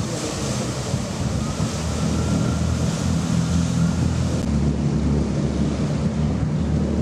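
Wind buffeting the microphone outdoors, a steady low rumble with a noisy hiss over it.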